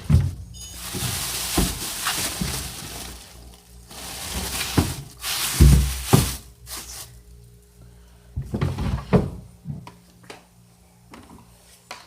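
Irregular knocks and clunks of things being handled and set down, with stretches of rushing noise between them; the loudest thump comes a little past halfway. Faint background music underneath.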